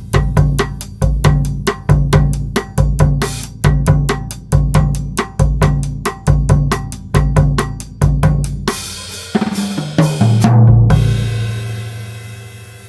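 Pearl Midtown compact drum kit (16-inch bass drum, 13-inch snare, 10-inch tom and 13-inch floor tom) played with maple sticks: a steady groove on bass drum, snare and cymbals. About nine seconds in, a fill runs down the toms to a final crash and floor-tom hit that rings out and slowly fades.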